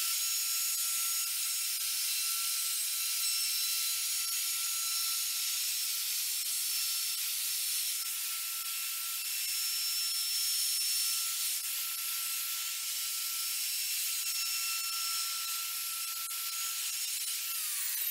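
DeWalt plunge router running at full speed with a steady high whine and hiss, routing a small chamfer around the edge of an end-grain cutting board. It is switched off near the end, and the whine starts to fall in pitch as the motor spins down.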